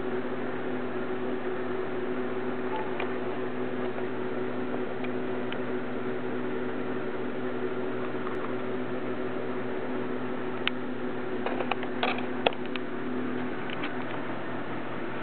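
Steady machine hum, with a handful of short sharp clicks between about eleven and fourteen seconds in.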